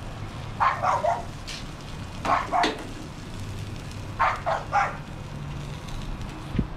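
A dog barking in short runs of two or three barks, about every two seconds.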